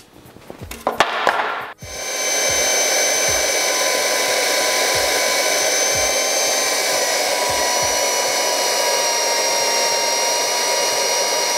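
Flex SBG 4910 portable band saw switched on about two seconds in and running steadily while it cuts a steel angle profile on a 45° mitre: an even motor whine with a few high, steady tones.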